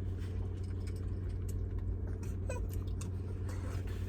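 Steady low hum of an idling car engine, with a few faint clicks.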